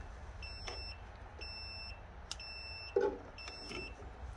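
GOOLOO GT4000S portable jump starter beeping steadily, about one short high beep a second. This is its safe-mode warning after too many starting attempts in ten minutes. A short thump sounds about three seconds in.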